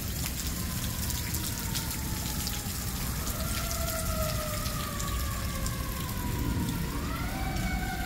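Fire engine sirens wailing, their pitch sliding slowly down for several seconds and rising again about seven seconds in, over steady rain.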